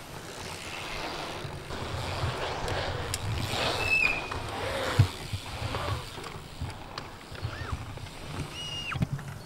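Dirt jump bike tyres rolling over a dirt pump track, growing louder toward the middle, with one sharp thump about five seconds in, like a landing.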